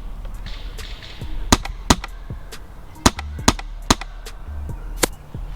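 Airsoft gun firing about six sharp single shots at irregular intervals, over a low rumbling background.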